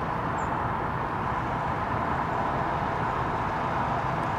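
Boeing 737-800 airliner on approach with its gear down, its CFM56 turbofan engines making a steady, even rushing noise.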